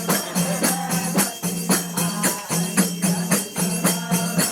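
Music with an even beat of jingling, tambourine-like percussion strokes, about four a second, over a low steady tone.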